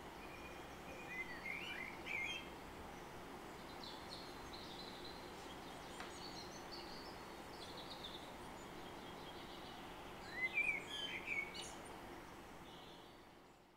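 Garden birdsong: short chirping phrases about a second in and again louder about ten seconds in, with fainter chirps between, over a faint steady background hiss that fades out at the end.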